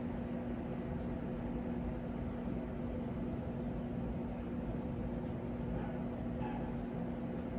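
Steady room tone: a constant low hum with an even hiss behind it, like an air conditioner or fan running.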